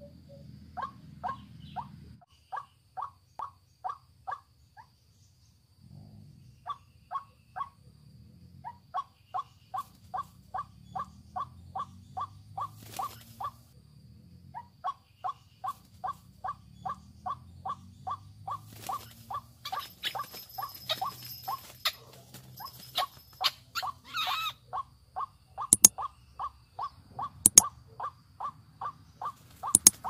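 White-breasted waterhen calling: a long run of short, regular croaking notes, about two to three a second, with brief pauses. A few sharp clicks near the end are the loudest sounds.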